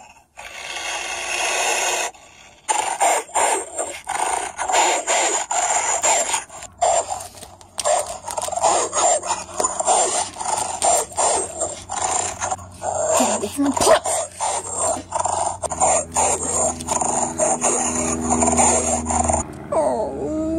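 Dogs snarling and growling in a fight, a fast run of short snarls. A low, steady growl joins in about three-quarters of the way through, and a rising cry comes near the end.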